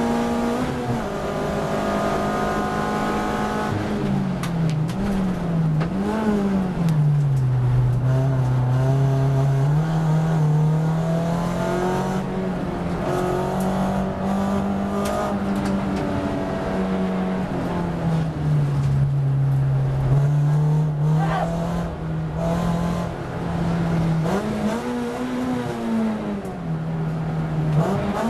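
In-car sound of a VW Lupo race car's engine under hard driving. The engine note drops about a second in as the car brakes from speed, and it jumps up and down quickly a few times during the downshifts. It then pulls through the slow corners, rising and dipping with the throttle.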